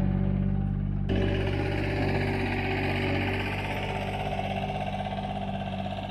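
An engine running steadily, with music underneath. The sound changes abruptly about a second in, like a cut between clips.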